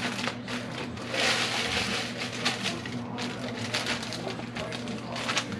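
Zip-top plastic bag crinkling and rustling as crushed Oreo crumbs are shaken out of it into a pan, with a denser rush of crumbs about a second in. A steady low hum runs underneath.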